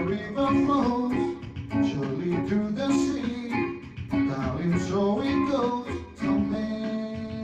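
Reggae band music: a guitar playing a plucked melody over bass guitar.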